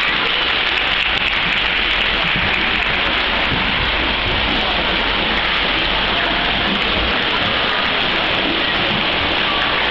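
Steady rushing and splashing of pool water churned by dolphins swimming fast at the surface.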